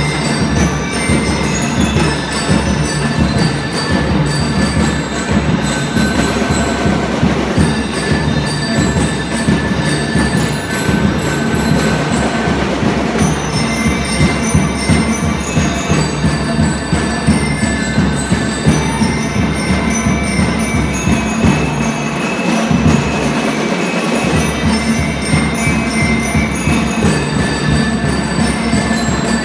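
Drum and lyre band playing: marching drums beat a steady rhythm under a ringing melody on bell lyres. The low drums drop out briefly twice about three quarters of the way through.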